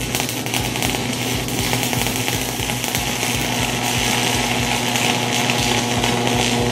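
Stick welding arc crackling and sizzling steadily as the electrode is held in one spot and burns down. The rod is deliberately left to be consumed, so the arc is getting longer and longer on its way to failing.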